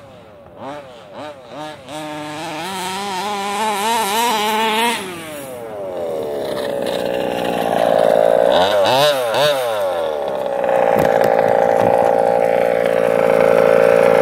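Small gas two-stroke engine of a 1/5-scale RC buggy running over grass: a few short throttle blips, then long climbing revs. The pitch dips and climbs again about nine seconds in, then holds at high revs toward the end.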